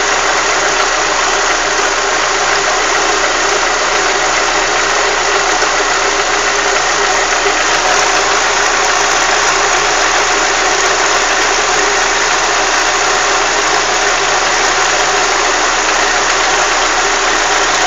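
Chevrolet Monza engine running steadily at operating temperature, with the noise that its owner hears once it is warm. He has been told it could be a hydraulic lifter or piston skirt slap.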